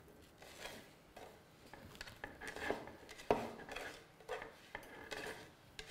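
Couscous grains being scooped by hand from a bowl and dropped into the steamer basket of a couscoussier: soft irregular rustling and light clicks, with one sharper knock about three seconds in.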